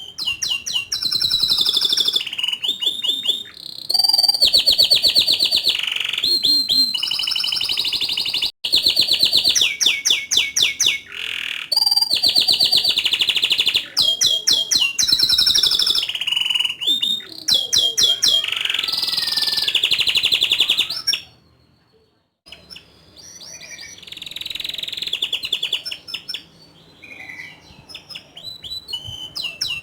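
Domestic canary singing long, loud phrases of very fast rolling trills and sharp high notes. About two-thirds of the way through it stops briefly, then resumes more softly.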